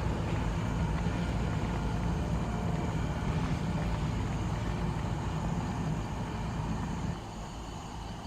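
A steady low mechanical hum, like a running engine, that drops away suddenly about seven seconds in, leaving a quieter background.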